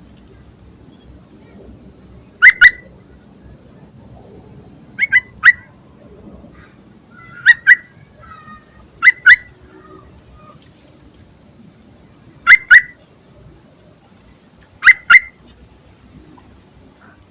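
Yellow-vented bulbul (trucuk) giving short, sharp call notes: six calls, each of two or three quick notes, a few seconds apart. It is billed as a female's call to males, used as a lure for trapping.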